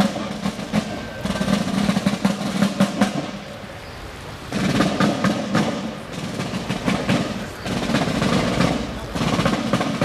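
Military side drums playing a marching cadence with rolls. They drop out for about a second a few seconds in, then start again.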